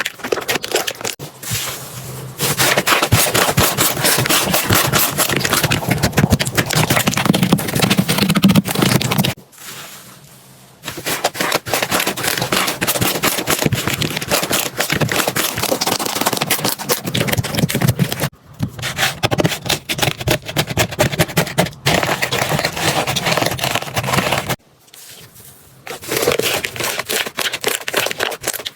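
Slime being squeezed and worked, a dense crackling and popping of many tiny clicks, in several stretches with short breaks between them.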